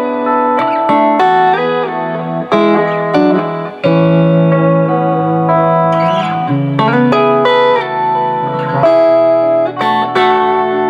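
Fender Road Worn Telecaster electric guitar, fitted with a Bigsby vibrato on a Vibra-Mate, being played: picked melodic phrases over chords, the notes changing every fraction of a second, with a few notes held longer in the middle.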